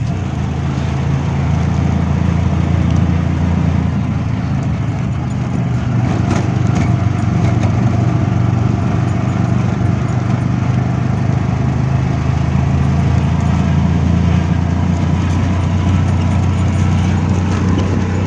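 Auto rickshaw's small engine running steadily while it drives along, heard from inside the cab.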